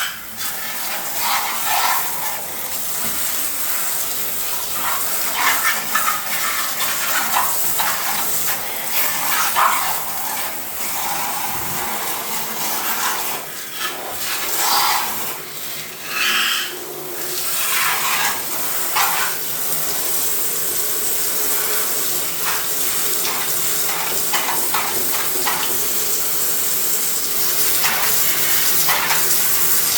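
Running water splashing in a bathtub over a printer being rinsed, with scattered knocks and rattles of handling.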